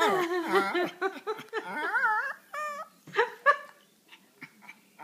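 Pomeranian dog vocalising in a wavering, whining, moan-like voice while having her back scratched, pleased rather than distressed. A run of warbling, up-and-down calls for about two seconds, then a few shorter high calls.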